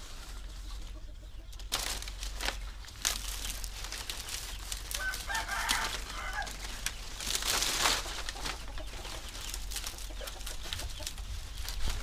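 Chickens in the background, with a rooster crowing once about five seconds in. Dry banana leaves rustle and crackle throughout as they are handled.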